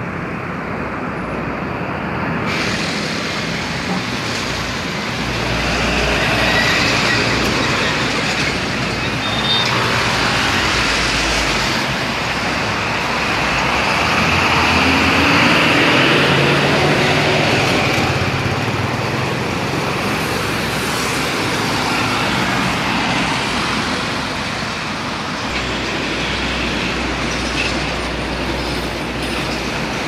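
Large bus driving past close by, its engine and tyre noise swelling to a peak about halfway through, over steady road traffic.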